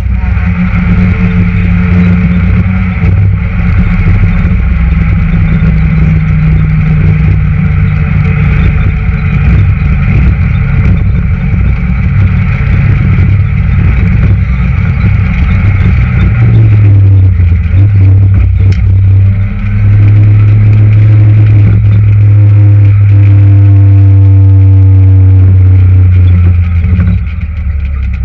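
Citroën Saxo VTS rally car's four-cylinder engine heard from inside the cabin, running hard at speed with road and tyre noise. About two-thirds of the way through it settles into a steadier, louder drone with a whining tone that slides up and down in pitch.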